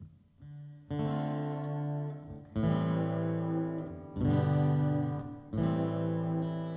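Acoustic guitar strumming slow chords as a song intro, a new chord struck roughly every one and a half seconds and left to ring.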